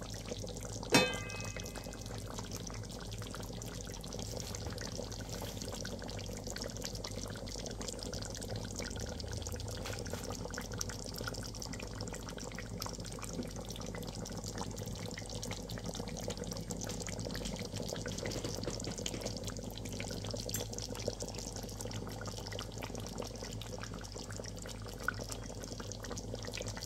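Fish simmering in coconut milk in a metal pot, a steady bubbling, with a single ringing metallic clink about a second in.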